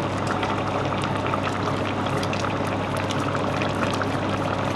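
Pot of pepper soup simmering on the hob, a steady bubbling with many small irregular pops.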